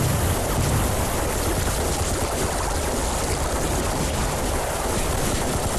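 Dense, steady rushing of river water, with no distinct shots standing out.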